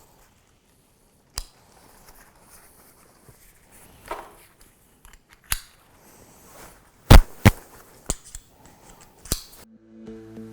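Harness press-stud (pop button) clips snapping open and shut: a few separate sharp clicks, the loudest pair about seven seconds in, with fabric and strap handling between. Soft background music starts near the end.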